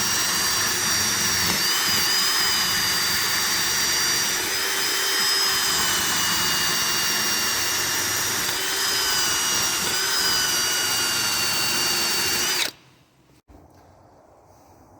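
An electric power tool, drill-like, running at high speed with a high whine that wavers slightly in pitch as it takes load, then cuts off suddenly near the end.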